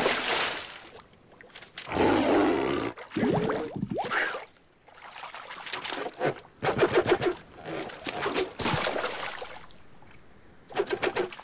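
Cartoon water sound effects: a splash as a character plunges into the sea, then splashing as he swims. Short pitched cartoon vocal noises come from the character twice, in the middle and near the end.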